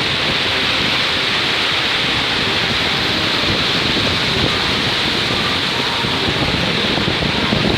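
Black Sea surf washing onto a beach, a steady, even hiss.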